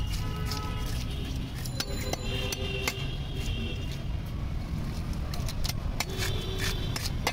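Boti blade cutting into a large catla, many short sharp clicks and scrapes of metal against bone and scales, over a steady low background rumble with a few brief held tones.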